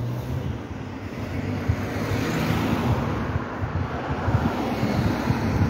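Road traffic: a motor vehicle's engine running and its tyres hissing on the road, growing louder about halfway through.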